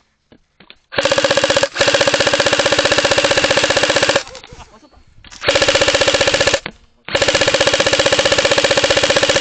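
Airsoft electric gun firing on full auto, a fast, even rattle of the gearbox cycling shots. There are three bursts: one about three seconds long starting a second in, a short one of about a second, then a long one near the end.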